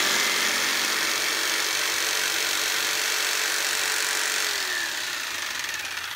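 Black & Decker electric jigsaw running and cutting through a small piece of wood. About five seconds in its pitch drops and it grows quieter.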